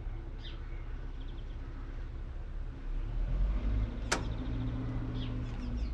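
Valtra T174's 7.4-litre six-cylinder diesel engine running steadily; about three seconds in its low hum grows louder and heavier. A single sharp click comes a second later.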